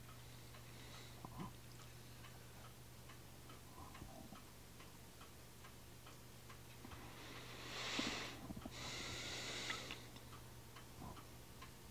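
Quiet room tone with a steady low hum and faint scattered clicks. About seven seconds in comes a soft hissing noise lasting roughly three seconds.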